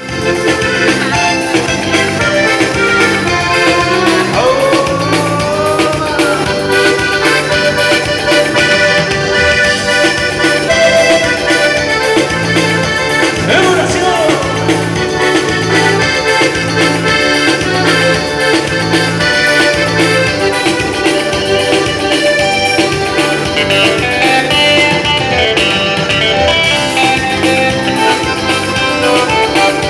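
Live dance band music led by an accordion, playing continuously over a steady, repeating bass beat.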